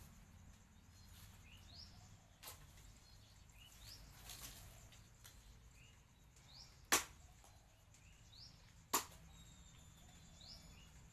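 Three sharp single knocks a few seconds apart, the second the loudest, over faint repeated bird chirps.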